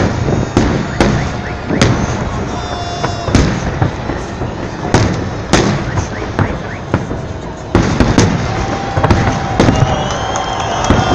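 Fireworks salute, shells bursting in a rapid, irregular series of sharp bangs, with a crowd's noise that grows louder about eight seconds in.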